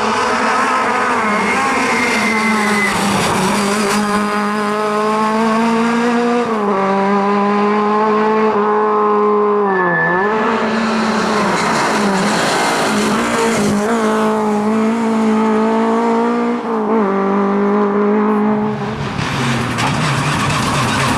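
Rally car engine run hard at high revs on a stage, held fairly level with a few short dips where the driver lifts or changes gear, the sharpest about halfway through, each time climbing straight back up.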